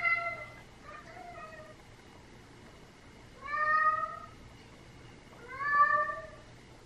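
Long-haired orange cat meowing to be let outside: a meow trailing off at the start, a faint short one about a second in, then two loud drawn-out meows about two seconds apart, each rising then falling in pitch.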